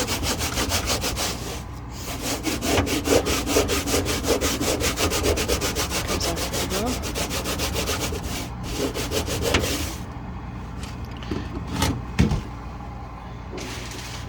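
A scratchy Norwex cleaning cloth scrubbed hard back and forth over a fridge surface in quick strokes, several a second, working at dried-on stains. The scrubbing stops about ten seconds in, and a single knock follows about two seconds later.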